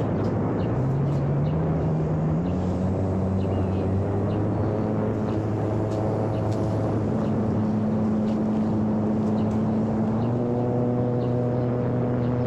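Model airplane's electric motor and propeller running with a steady hum that steps up in pitch a few times in the first couple of seconds and again near the end as the throttle is changed, under a heavy rush of wind noise.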